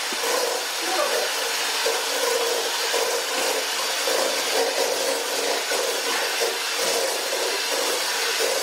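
Electric hand mixer running steadily, its beaters creaming softened butter and sugar in a stainless steel bowl.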